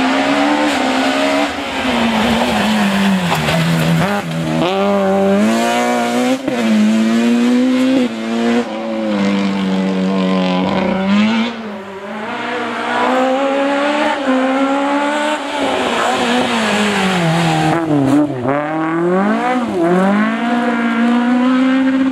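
Rally cars driven flat out on a tarmac stage: a BMW 3 Series rally car's engine revs hard, its pitch climbing through each gear and dropping on the lift-offs and braking. After a brief dip about twelve seconds in, a second rally car's engine takes over, revving the same way.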